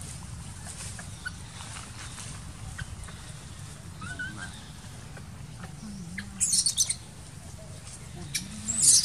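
Two short, loud bursts of high-pitched chirping calls, one about six seconds in and one at the very end, with a fainter gliding call around four seconds in.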